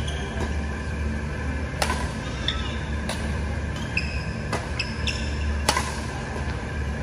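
Badminton rally: rackets strike the shuttlecock in four sharp cracks about a second and a quarter apart, the last the loudest. Court shoes squeak briefly on the floor between the hits, over a steady low hum.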